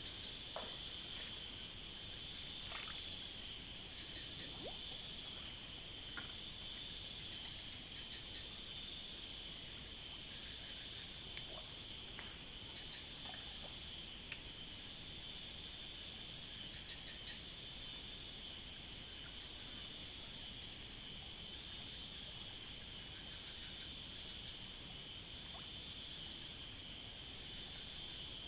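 Chorus of forest insects holding a steady, high-pitched drone, with one call pulsing about once a second above it. A few faint clicks.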